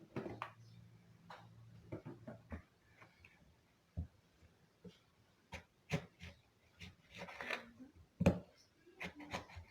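Knife cutting lemons on a board: scattered, irregular sharp clicks and knocks, two louder knocks in the second half.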